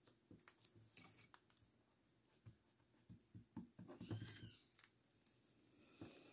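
Faint taps and clicks of a paintbrush and small paint pots being handled on a table, with a short chirping bird call about four seconds in.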